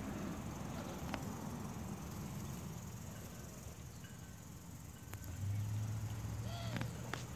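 Soft rustling and scraping as carrots are pulled by hand from loose potting soil, their leafy tops brushing. A low steady hum joins about five seconds in.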